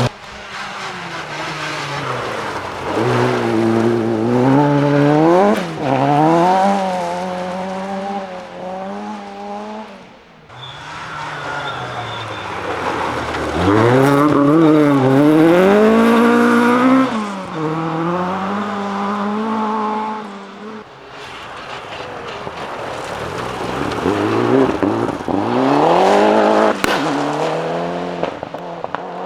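Rally cars passing one at a time, engines revving up and dropping back again and again as they shift gear. The sound changes abruptly twice, so three separate passes are heard.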